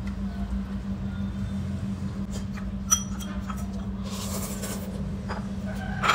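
Chopsticks clinking and tapping against ceramic bowls, a few scattered clicks with one sharp ringing clink about three seconds in. About four seconds in comes a short airy sip from a soup bowl, over a steady low hum.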